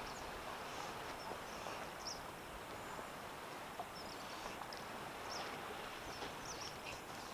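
Steady outdoor coastal ambience: an even hiss of shallow sea water and wind around a wading angler, with a few faint short high-pitched chirps or ticks.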